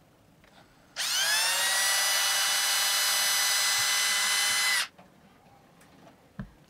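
Cordless drill spinning up and running steadily for about four seconds, reaming out a hole in a small plastic circuit-breaker part with a bit just under 3 mm, then stopping abruptly.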